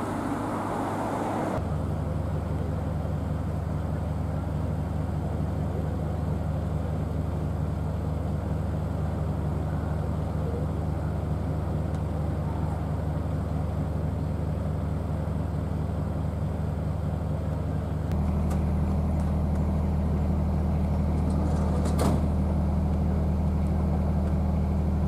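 A steady low machine drone that shifts abruptly twice and is louder from about 18 seconds in, with one sharp click about 22 seconds in.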